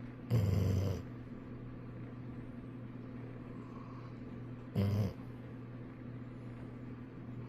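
Golden retriever snoring in its sleep: two loud, low snores about four seconds apart, the first longer than the second, over a steady low hum.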